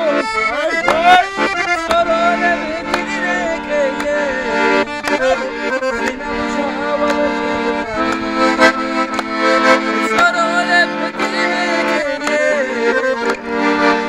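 Button accordion playing an Avar folk tune: sustained chords and a running melody with a steady pulse. A man's voice sings along over it at times, most clearly near the start and again later on.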